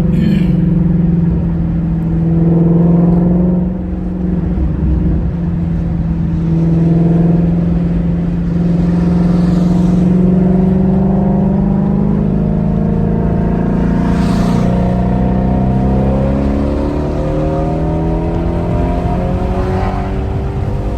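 Ford Mustang Shelby GT350's 5.2-litre flat-plane-crank V8 running under way. The engine note holds fairly steady, drops briefly about four seconds in, and climbs in pitch as the car accelerates in the later part.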